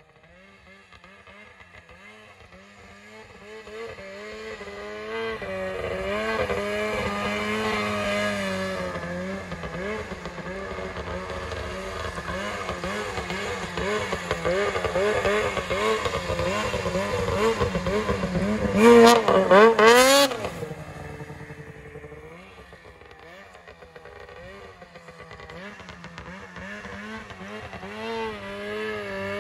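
Two-stroke snowmobile engine revving and easing off as the sled is ridden around, its pitch rising and falling with the throttle. It grows louder as the sled approaches, is loudest as it passes close about two-thirds of the way in, then drops away and builds again near the end.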